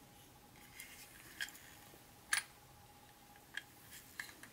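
Light, irregular clicks and taps of small objects being handled, about six in all, the loudest a little past the middle.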